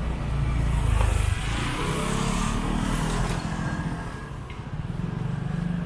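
Motorcycle engine running with street noise. Its low drone is loudest about a second in and drops away soon after.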